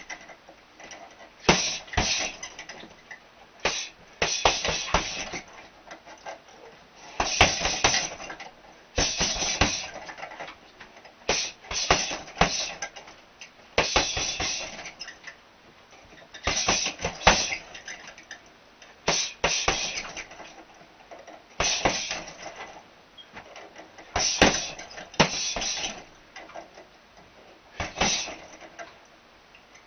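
Gloved punches landing on a hanging teardrop punch bag in quick flurries of several sharp blows, a new flurry every two to three seconds.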